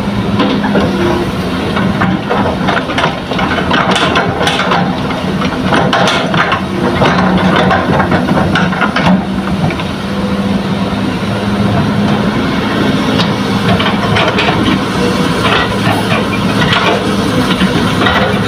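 Hitachi hydraulic excavator's diesel engine running steadily while it loads fill soil into a dump truck. Scattered knocks and clatter of dumped soil and stones come mostly in the middle.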